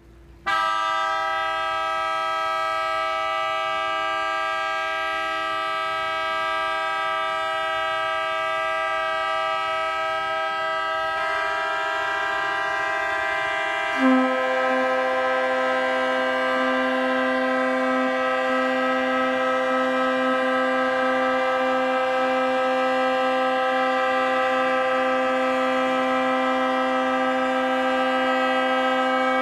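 Several barge horns sounding together in one long, unbroken blast. The first starts about half a second in, another joins at around eleven seconds, and a lower, louder horn comes in at around fourteen seconds; all hold steady to the end.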